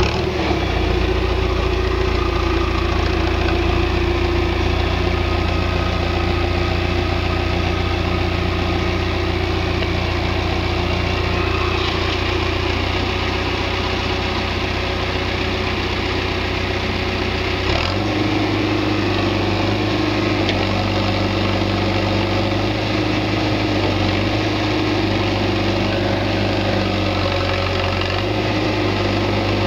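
Backhoe engine running steadily; its note changes abruptly about two-thirds of the way through.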